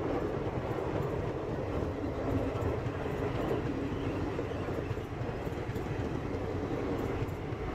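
Passenger coaches of an Indian Railways express train passing at speed on the nearest track. The wheels on the rails make a steady rolling rumble that holds at an even level throughout.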